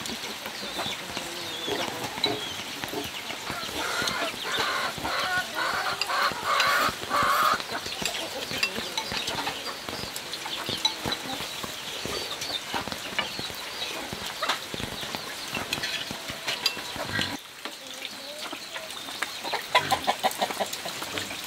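Chickens clucking repeatedly, loudest a few seconds in, over the small clicks and slurps of two people eating noodles from bowls with chopsticks and spoons.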